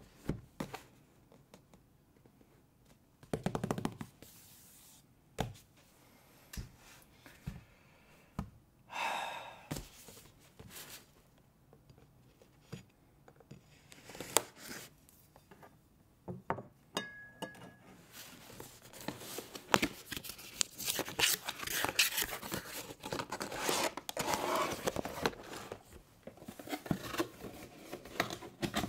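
A cardboard toy box being handled and opened: scattered taps and knocks on the box, a knife cutting the tape seals, then steady crinkling and rustling of the plastic insert tray and bags in the last ten seconds or so.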